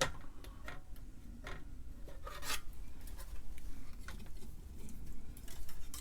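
Small, irregular clicks, taps and scrapes of hands and small metal tools working a circuit board and a capacitor's leads on the bench, over a steady low hum.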